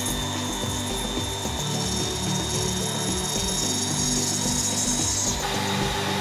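High-speed hand grinder with a tapered bit cutting into acrylic: a steady high whine with grinding hiss, which shifts about five seconds in.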